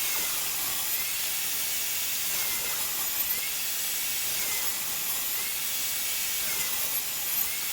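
Table saw running through a pass that cuts the groove for the drawer bottom in a drawer side, a steady hissing noise of the blade in the wood that starts and stops abruptly.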